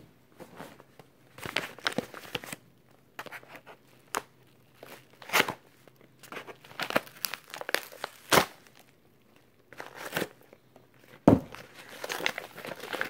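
Padded mailing envelope crinkling and tearing as it is slit with a blade and pulled open by hand: a run of scattered crackles and sharp rips, the loudest rip near the end.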